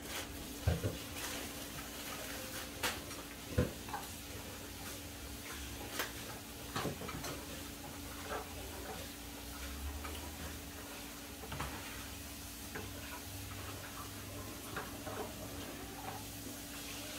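Scattered light clicks and taps of kitchen work over a steady low hum, with a couple of louder knocks in the first few seconds.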